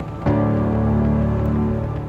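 Music: a low sustained chord comes in about a quarter second in, holds steadily and begins to fade near the end.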